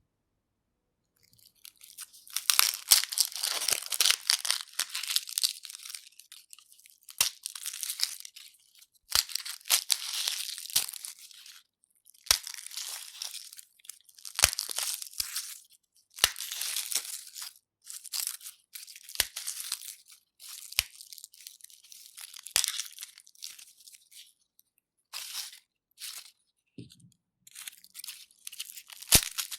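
Dry, papery garlic skins crackling and tearing as garlic is peeled, in bursts of one to two seconds with short pauses between them, with occasional sharp clicks.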